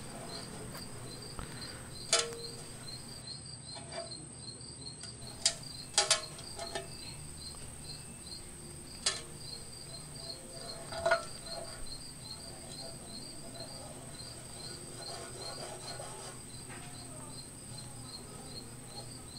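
Insects chirping steadily in a regular pulsing rhythm over a constant high-pitched hum, with a few sharp clicks and taps scattered through it, the loudest sounds present.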